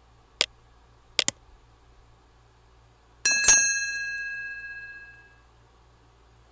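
Sound effects of a subscribe-button animation: a mouse click, then a quick double click about a second in, then a bell ding about three seconds in that rings out and fades over about two seconds.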